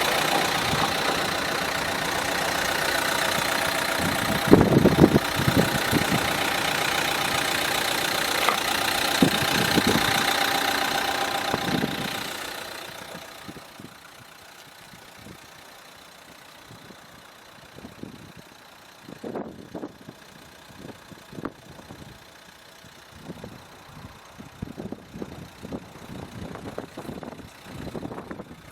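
Renault Laguna's 1.5-litre four-cylinder turbodiesel idling steadily. About twelve seconds in it fades away, leaving only faint scattered clicks and knocks.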